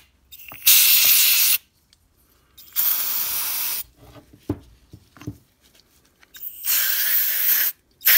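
Aerosol can of gasoline-based cleaner spraying in three hissing bursts about a second long each, the last after a longer pause, with a few light handling knocks between the second and third.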